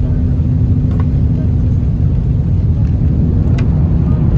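Cabin noise inside an L0 series superconducting maglev running at about 400 km/h: a loud, steady low rumble, with a faint steady hum that stops about halfway through.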